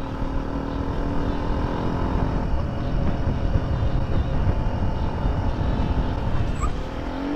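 Motorcycle riding along a street, heard from a helmet-mounted camera: steady wind rush over the mic with the engine running underneath, its note rising near the end.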